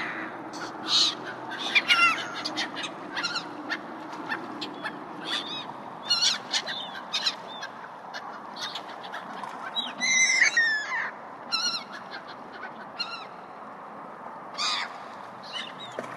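Gulls calling again and again in short cries, with a longer, louder run of calls about ten seconds in, over steady background noise.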